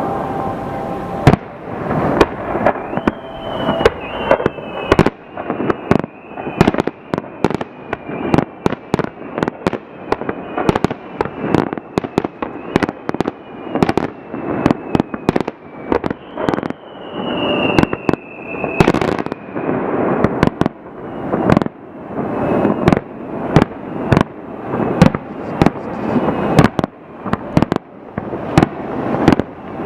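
Fireworks display: aerial shells bursting in rapid, dense succession with loud sharp bangs, several a second. Between about 3 and 19 seconds in, high whistling tones from the fireworks run over the bangs, slowly falling in pitch.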